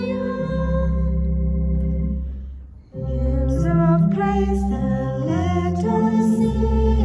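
A hymn being sung, with long held notes over steady low accompanying tones; the music thins out and dips briefly about two and a half seconds in, as between two lines, then picks up again.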